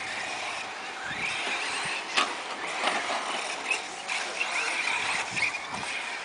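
Radio-controlled truck's motor whining, rising and falling in pitch as it speeds up and slows, with a few sharp clicks.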